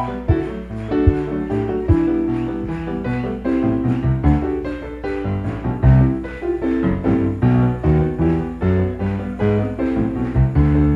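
Piano-voiced keyboard played live: a continuous run of chords over deep bass notes.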